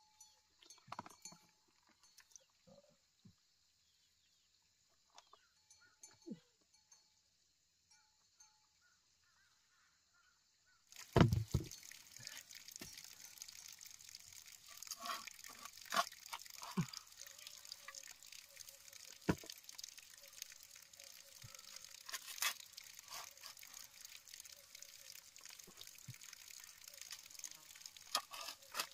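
Faint wet squelches and splashes of bare feet in the mud and water of a flooded rice paddy; about a third of the way in, after a knock, a spade scrapes and chops into wet seedbed soil again and again, lifting rice seedlings, over a steady background noise.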